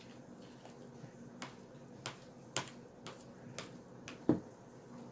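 About six separate light clicks and taps of small objects being handled, spread across a few seconds. The loudest comes a little past four seconds in.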